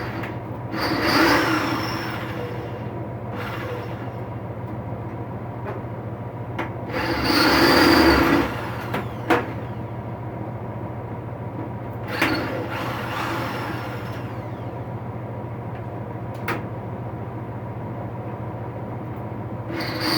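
Single-speed power drill drilling out the steel rivets of a tool box handle: the motor runs steadily, and the bit grinds and squeals into the metal in four louder surges, with a couple of sharp clicks between them.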